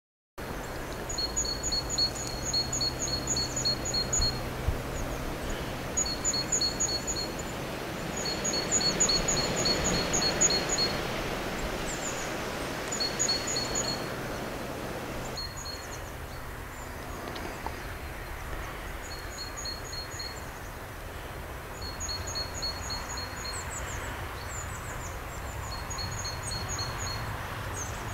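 A small bird calling in repeated quick trills of high, evenly spaced notes, each burst a second or two long, over wind noise that eases about halfway through.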